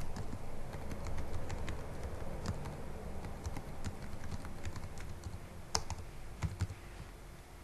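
Typing on a computer keyboard: a quick run of key clicks that thins out over the last couple of seconds, with a few sharper clicks about six seconds in.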